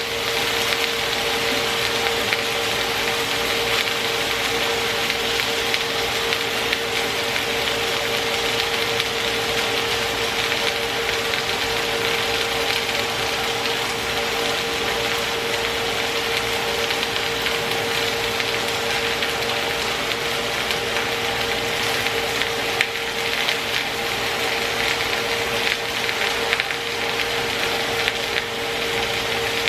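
Boneless, skinless chicken thighs sizzling steadily as they brown in a hot pan, with a steady hum underneath.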